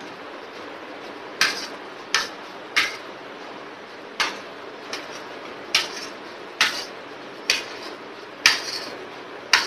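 A metal spoon scraping and clinking against a ceramic plate while scooping rice, about ten sharp strokes roughly a second apart.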